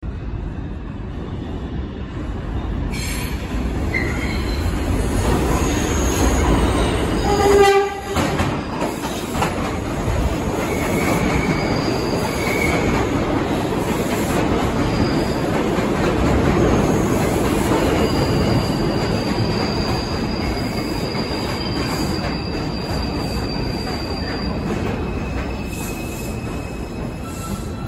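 New York City subway train running into the station with a steady rumble of wheels on the rails. A short horn blast sounds about seven seconds in, and high wheel squeal comes and goes, longest in the second half.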